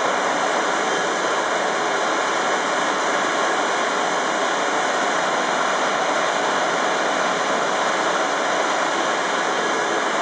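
ESAM 'Unijet' side-channel exhauster (vacuum pump) running with a loud, steady, even rushing roar. It is pulling a vacuum on the beam engine's exhaust so that atmospheric pressure drives the piston.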